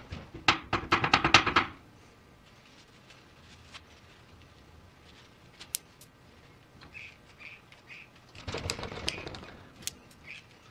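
A fast run of metallic clicks and rattles, then a quieter pause, then a second, noisier stretch of clicking and scraping near the end, from hand work on a tie rod end clamped in a steel bench vise with a grease gun hose attached.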